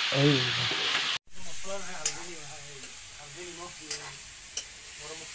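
Food frying and sizzling in a pot over a wood fire while being stirred, with three sharp clicks, typical of a spoon striking the pot. Quiet voices talk underneath, and the sound cuts out briefly about a second in.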